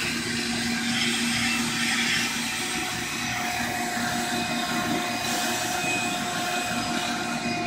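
Steady mechanical whir with hiss and a constant low hum, from running machinery such as pumps or a vacuum motor.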